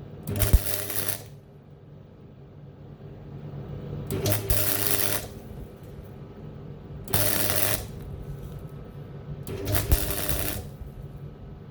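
MIG welder arc crackling in four short bursts of about a second each, laying plug welds on steel sheet, with a steady low hum between the bursts.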